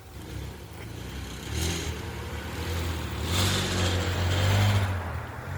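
A car driving past: low engine hum and tyre noise building to a peak about three and a half to five seconds in, then easing off.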